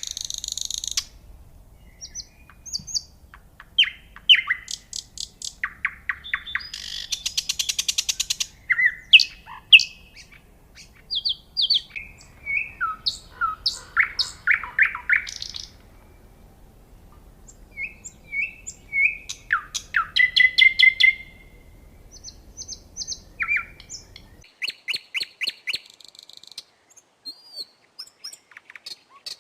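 Nightingale singing: a long series of varied phrases, with rapid repeated notes, trills, sweeping whistles and sharp chirps, each phrase broken off by a short pause.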